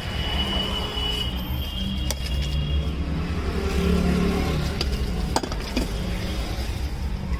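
Busy street ambience: a steady traffic rumble, with a few sharp clicks a little past the middle.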